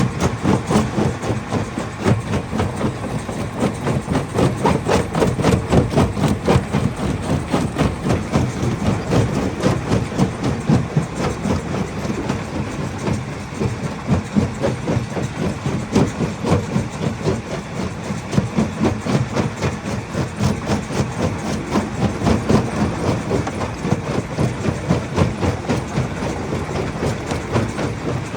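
Hammer crusher running with rock inside, a continuous rapid clatter of many impacts that swells and eases without stopping.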